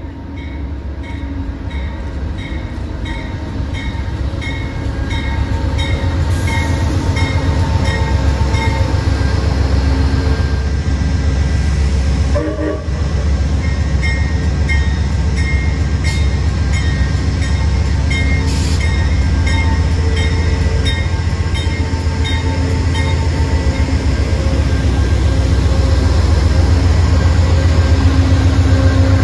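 CTrail Hartford Line diesel train pulling into the station, its low engine and wheel rumble growing steadily louder. A high ringing repeats evenly a little under twice a second, the locomotive bell sounding as it arrives.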